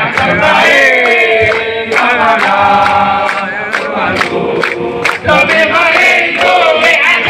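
A chorus of voices singing a song together, with long held, wavering notes.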